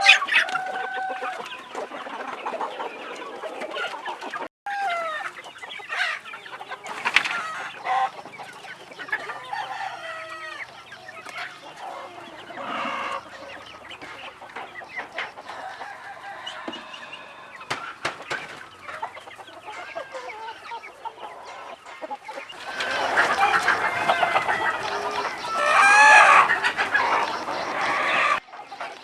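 A flock of free-range chickens clucking and calling throughout, getting louder near the end, where a rooster crows.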